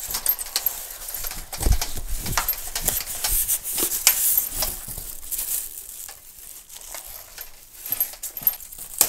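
Plastic wrapping crinkling and a cardboard box rustling and scraping as a plastic-wrapped, foam-packed stainless steel electric brewing unit is lifted out of its box, with scattered knocks and clicks throughout.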